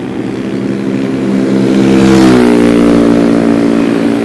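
A motor vehicle passing close by. Its engine note rises and grows louder, peaks about two seconds in, then drops in pitch as it goes past, over the steady running of the rider's own engine.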